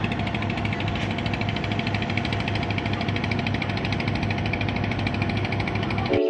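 Diesel engine of a river passenger launch running under way, a steady, rapidly pulsing chug heard from the deck. It cuts off suddenly near the end.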